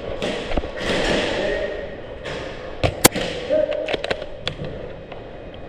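A sharp snap of a bolt-action airsoft sniper rifle firing once, about three seconds in, then a few lighter clicks, over continuous background noise.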